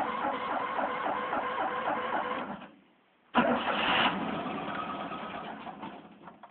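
A Fiat 126p air-cooled two-cylinder engine being cranked by its starter in a cold start after five days in about −12 °C frost, turning over in an even rhythm of about four to five beats a second without catching. The cranking stops, and after a short pause a second sudden burst follows and fades away.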